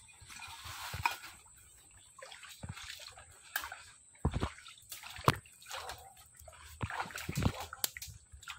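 Footsteps wading through swamp mud and shallow water, splashing and sloshing at an uneven pace, with a few sharper splashes.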